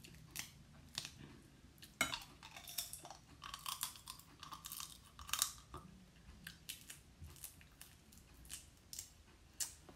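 Cooked crab shell being cracked and pulled apart by hand, with irregular sharp cracks and clicks, mixed with close-up chewing and sucking of the crab meat.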